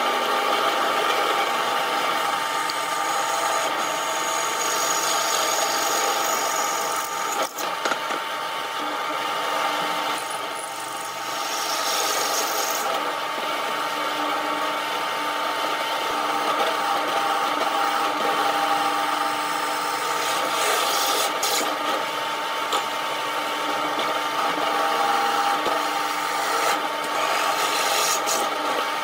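Bench drill press running steadily with a constant whine while a twist bit drills through steel plate, the cutting noise rising and easing as the bit is fed in.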